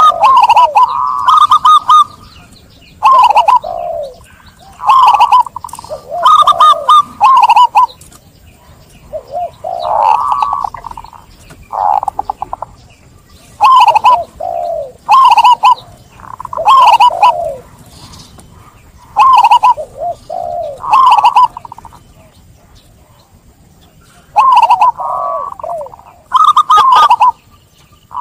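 Zebra dove (perkutut) cooing: a string of over a dozen phrases, each opening with quick staccato notes and running into a rolling coo, coming every second or two with short pauses between.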